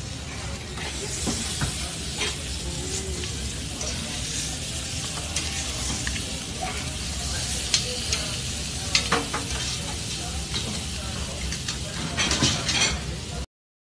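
Meat steaks sizzling on a hot grill grate: a steady hiss broken by scattered sharp clicks of metal tongs turning them. The clicks come more often near the end, then the sound cuts off suddenly.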